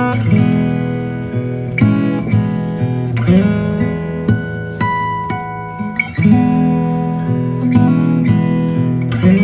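Background instrumental music: acoustic guitar playing plucked and strummed chords at a steady level.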